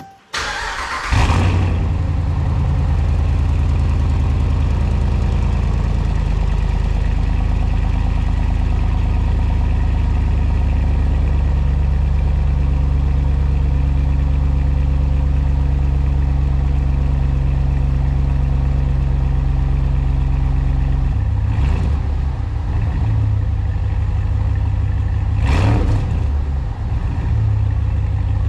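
Ram 1500's 5.7 L HEMI V8 with the muffler and resonator deleted, cranked on the starter and catching about a second in with a loud flare, then settling into a steady, deep fast idle. Late on, the idle drops lower and two short surges in revs follow.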